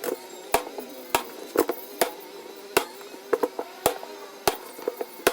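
Repeated sharp knocks or taps, about two a second, some coming in quick pairs, over a faint wavering tone.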